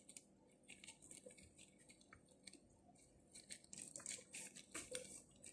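Faint rustling and soft small clicks of disposable-gloved hands rolling rice-filled grape leaves, busier in the second half.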